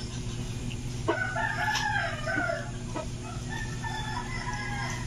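A rooster crowing, one long crow starting about a second in and lasting about a second and a half, then a fainter second call, over a steady low hum.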